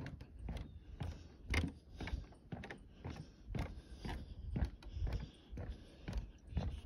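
Footsteps walking on wooden boardwalk planks, about two steps a second.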